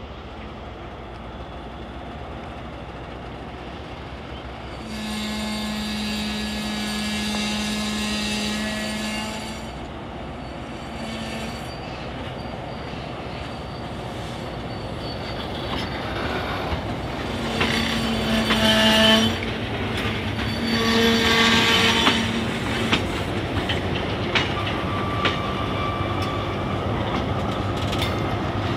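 Train of loaded ballast hopper wagons rolling slowly during shunting, with a steady rumble and clacking of wheels and couplings, growing louder toward the end. A long steady horn blast sounds about five seconds in. Two more long ringing tones come about two-thirds of the way through, alongside wheel squeal.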